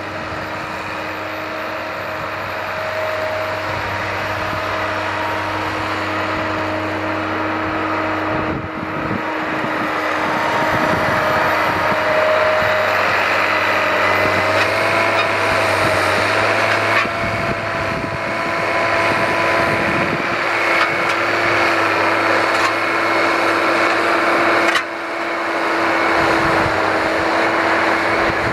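Steady engine noise carrying a whine that wavers slightly in pitch, growing gradually louder, with a few brief dips.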